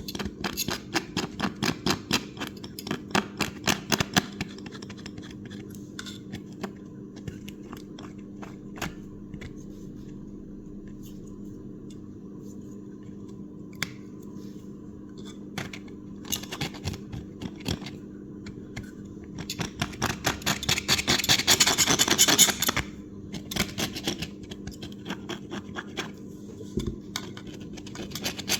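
A blade scraping old foam and adhesive off the rim of a car-audio speaker in quick strokes for the first few seconds, then more sparsely, with a burst of fast scraping about twenty seconds in. A steady low hum runs underneath.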